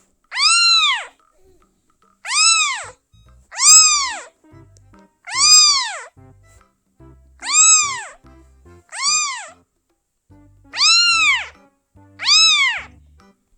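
Kitten meowing repeatedly: eight short, high-pitched meows, each rising and then falling in pitch, about one every one and a half to two seconds.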